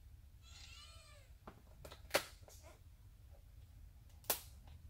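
A cat meows once about half a second in, a short call that rises and falls. A few sharp clicks and taps follow, two of them loud: one about two seconds in and one near the end.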